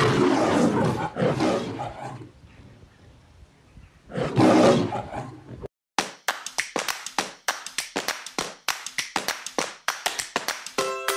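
Lion roars in the style of the MGM logo intro: two close roars, a pause, then a third about four seconds in. The roaring cuts off suddenly, followed by a fast run of sharp snapping clicks, several a second, with musical notes coming in near the end.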